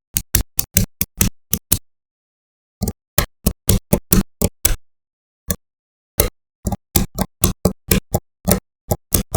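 Small magnetic balls clicking sharply as they snap together one after another in an uneven rhythm, with brief pauses about two seconds in and again around the middle.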